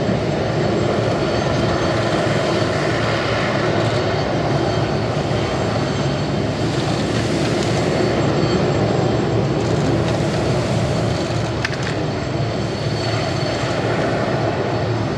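ShinMaywa US-2 flying boat's four Rolls-Royce AE 2100J turboprop engines running steadily as it taxis on the water, a loud, even propeller noise.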